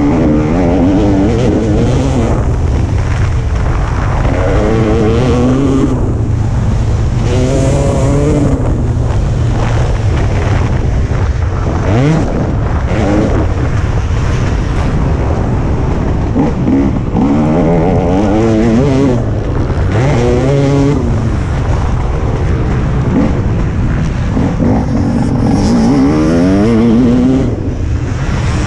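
Motocross bike engine heard close up from the bike itself, revving hard: its pitch climbs again and again and drops back as the rider accelerates and changes gear, with a steady rumble underneath.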